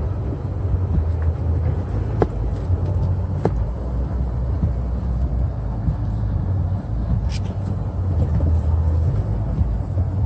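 Car rolling slowly, a steady low rumble of engine and tyres heard from inside the cabin, with a few sharp ticks.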